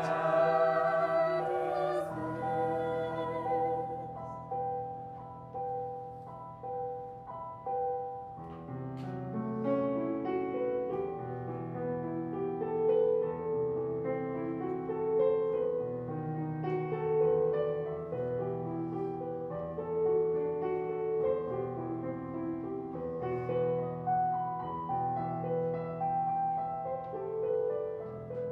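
A high school choir singing with piano accompaniment. A held chord fades over the first few seconds, then a slow passage of long, sustained notes begins about nine seconds in.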